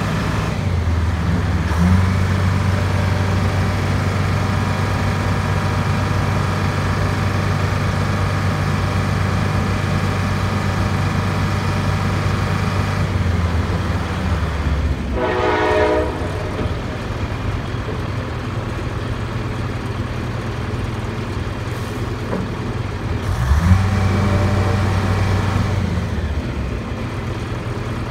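Rebuilt Detroit Diesel 4-53 two-stroke diesel of a 1976 Clark 55B wheel loader running under throttle while the bucket is raised. The engine speeds up about two seconds in and holds a steady higher note, then drops back near halfway, and speeds up again for a couple of seconds near the end. A brief whine comes in just after it drops back.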